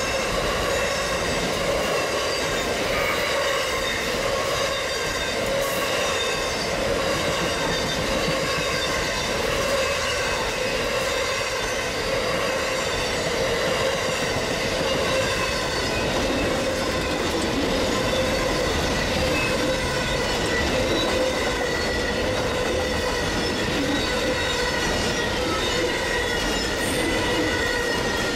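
Amtrak Auto Train rolling steadily past, its Superliner passenger cars and then enclosed autorack car carriers. The wheels squeal in a steady ringing tone that sinks slightly in pitch, over the continuous rumble of the cars on the rails.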